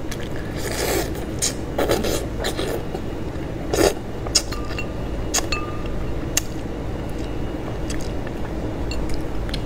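Wet sucking, slurping and lip-smacking of a man eating braised meat off the bone by mouth: scattered short smacks, with longer slurps about one, two and nearly four seconds in, over a steady low hum.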